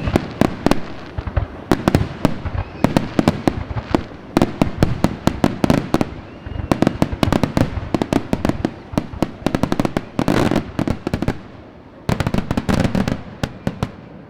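Fireworks going off in rapid succession: dense volleys of sharp bangs and crackles, with a short lull about twelve seconds in before a final volley.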